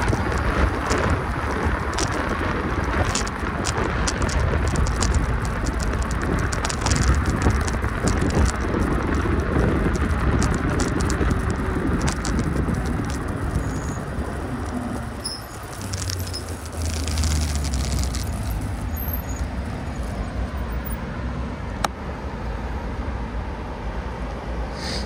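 Steady rumble and wind noise of travelling along a road, with scattered small clicks and rattles.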